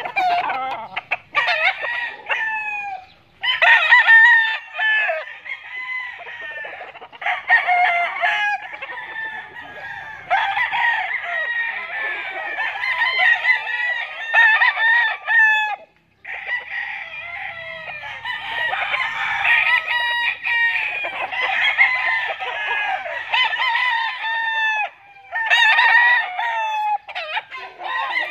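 Several tethered gamecocks crowing over one another, with some clucking; the calls overlap almost without pause and drop out briefly a few times.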